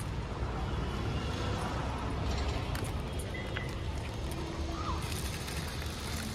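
Outdoor city ambience: a steady low rumble of traffic, with a couple of faint short tones about three and five seconds in.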